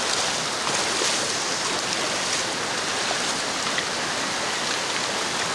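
River water rushing over rocks in a steady wash of noise; the river is running high and fast after rain.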